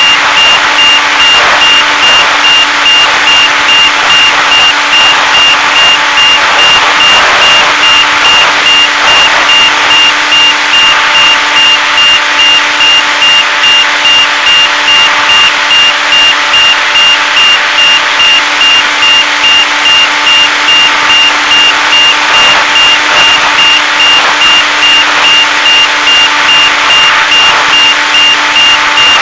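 Onboard in-flight audio of a HobbyZone Super Cub RC plane: the electric motor and propeller running loudly and steadily, with a high steady tone on top and a regular pulsing about twice a second.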